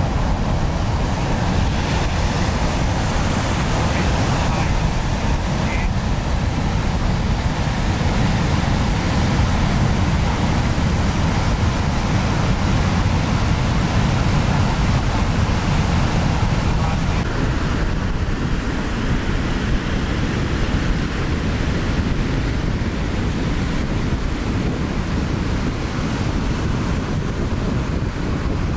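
Ocean waves breaking and surf washing in, a steady rush, with wind rumbling on the microphone.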